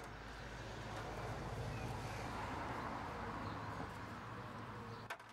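Steady low rumble with a hiss that swells in the middle and eases off, cutting off abruptly near the end.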